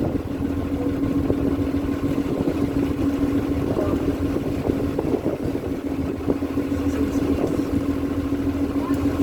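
Tour boat's engine running with a steady, even drone, over a low rushing noise from wind and water.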